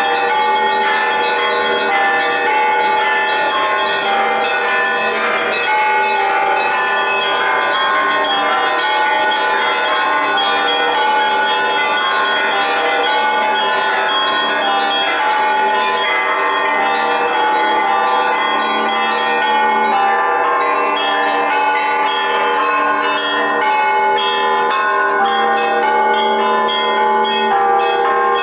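Russian Orthodox church bells ringing the festive Easter peal, many bells of different pitches struck in a busy, unbroken overlapping chime.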